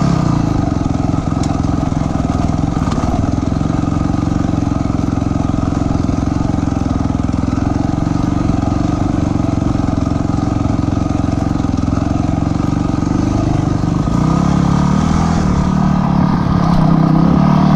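Dirt bike engine running steadily while riding, getting louder and changing pitch from about fourteen seconds in.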